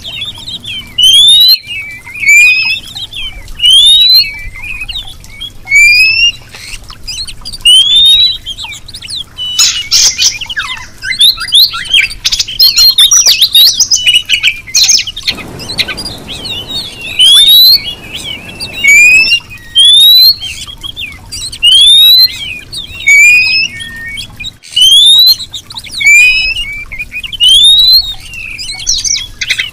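Female oriental magpie-robin calling: a short rising whistle repeated about every two seconds, with a busier run of mixed chirps and squawks in the middle. This is the call a female gives to draw a male.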